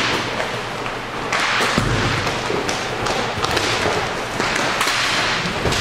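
Inline hockey play: a steady rolling rush of skates on the rink floor, broken by repeated sharp clacks and thuds of sticks, puck and boards.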